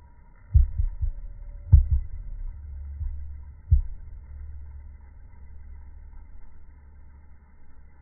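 Dull low thumps of handling noise on a smartphone's microphone, about five knocks in the first four seconds over a low rumble, which then fades to a faint rumble.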